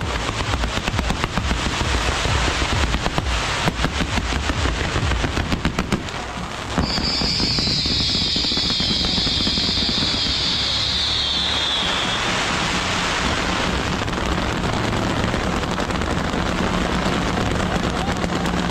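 Strings of firecrackers going off in rapid, dense crackling. About seven seconds in it becomes a steadier, continuous crackle, with a high whistle sliding downward for about five seconds.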